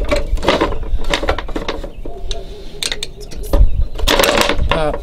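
Metal clinking and scraping as a coiled hinge spring is worked off a ProSlide XT sulky's hinge with a hand tool, with a dense rattle of clinks about four seconds in.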